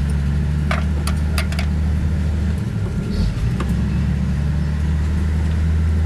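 An engine running steadily at idle, with a handful of sharp knocks, four in quick succession about a second in and one more a little past halfway.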